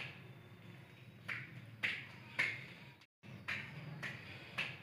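A series of sharp, snap-like clicks, about five or six and unevenly spaced, over a low steady hum. The sound cuts out completely for a moment about three seconds in.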